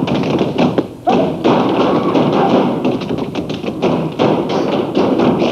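Tap dancers' boots striking a stage floor in fast, dense stamping and tapping rhythms, with a brief break about a second in.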